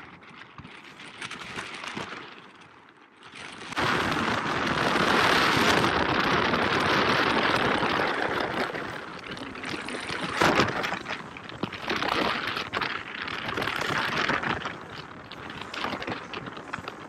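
Rushing wind and water noise aboard a catamaran under way, jumping much louder about four seconds in and then surging up and down.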